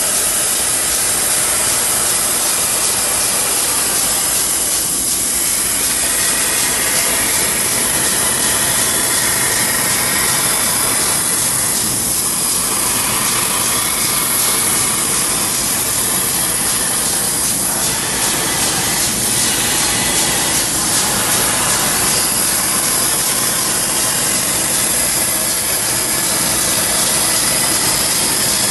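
Hypertherm XPR300 plasma torch cutting metal plate on a CNC cutting table: a loud, steady hiss of the arc and gas jet, unbroken throughout.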